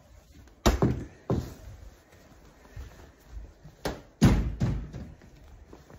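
Several dull thumps and knocks in two groups, one about a second in and one about four seconds in, the loudest just past four seconds.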